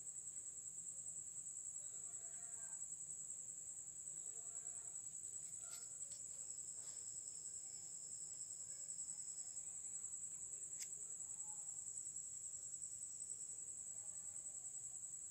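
Continuous high-pitched insect trill, steady and unbroken.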